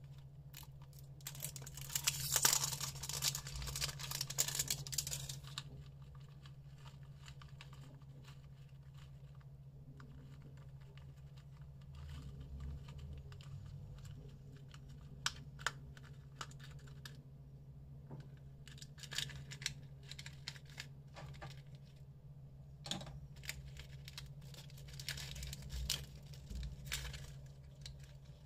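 A plastic shrink-wrap label is torn and crinkled off a plastic football-shaped candy ball, loudest a couple of seconds in. Then come scattered clicks of the hard plastic shell being handled and opened, and crinkling of small cellophane candy packets. A steady low hum runs underneath.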